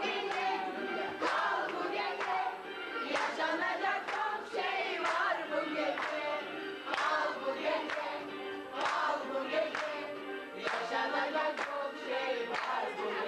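A group singing together with hands clapping along in a steady rhythm.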